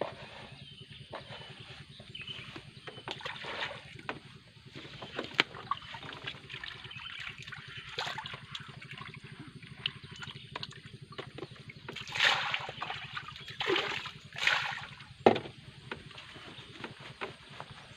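Water sloshing and lapping with scattered knocks and clicks, the kind heard on a floating fishing raft on a reservoir. A few louder splashes come late on.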